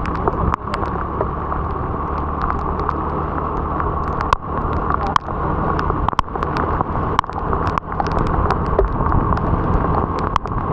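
Motor scooter on the move: a steady engine hum and road noise, with many sharp ticks scattered throughout.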